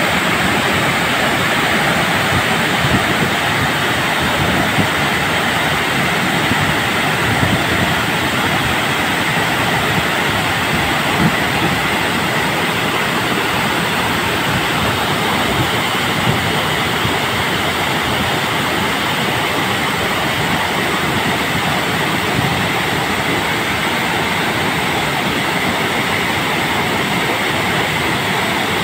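Water pouring through the open gates of a masonry dam spillway and crashing down the stone face: a loud, steady rush.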